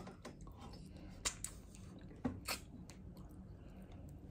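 Faint eating sounds: someone gnawing and chewing meat off a lamb bone held in the hands, with a few sharp clicks about a second in and twice a little after two seconds in.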